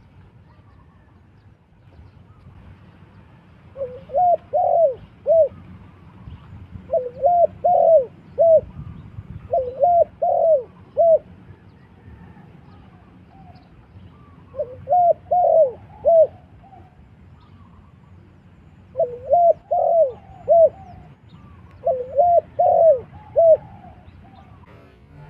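Spotted dove cooing: six short phrases of three or four soft, rounded coo notes each, repeated every few seconds.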